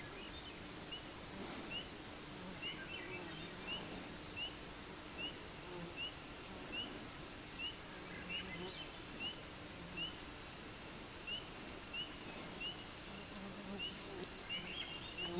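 A short, high, rising chirp repeated steadily about once every three-quarters of a second from an unseen small animal, over a faint background hiss of woods.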